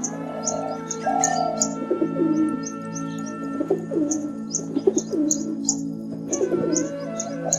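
Bird calls over a steady held musical drone: short high chirps repeat through the whole stretch, with several low falling calls in the middle.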